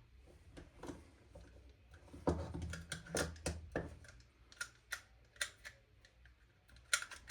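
Scattered light clicks and taps of airsoft gearbox parts being handled as the spring guide is fitted, with a brief patch of rubbing in the middle and a few sharper clicks near the end.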